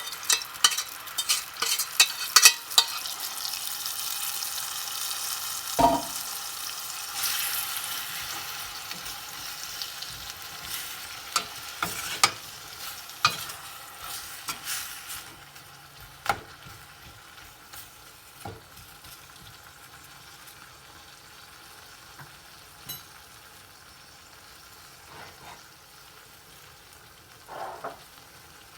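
Food frying in a pan while a utensil stirs and scrapes it, with quick clicking strokes for the first few seconds. The sizzle then slowly dies down, leaving only an occasional knock of the utensil on the pan near the end.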